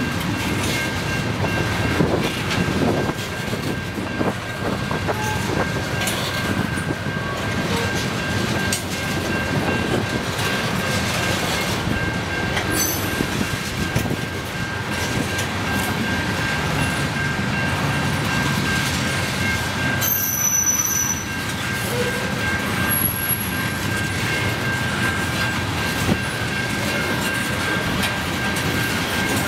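A freight train's tank cars rolling steadily past, with a continuous rumble and irregular clacks from the wheels over the rail joints. A steady high ringing tone carries on throughout.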